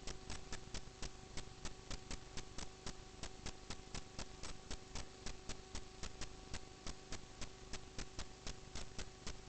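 Steady, even ticking about four times a second over a constant hum.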